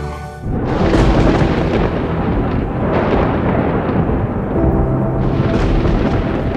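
Thunder rolling in suddenly about half a second in, a deep rumble with several sharper cracks in it. Soft music plays underneath.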